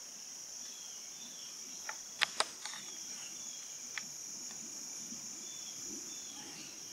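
Steady high-pitched drone of insects in late-summer woodland. Faint short chirps come and go over it, and a few sharp clicks sound about two seconds in and again at about four seconds.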